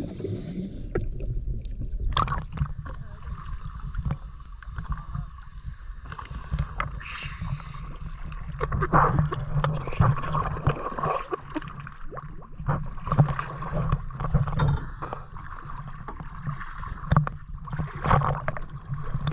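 Water sloshing and splashing against a camera held at the surface, over the steady low hum of a dive boat's engine running at idle.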